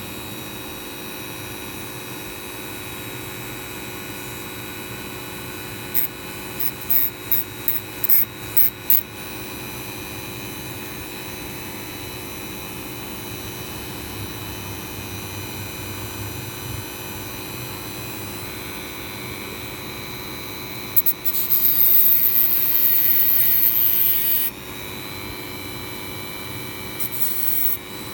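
Small rotary tool with a cut-off disc running steadily, and steel safety-pin wire ground against the spinning disc: a string of short touches about six seconds in, one longer grind of about three seconds two-thirds of the way through, and a few short touches near the end.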